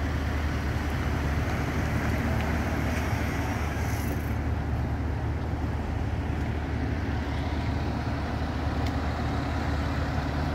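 Emergency vehicles' engines running at idle: a steady low rumble with an even hiss of engine and road noise over it.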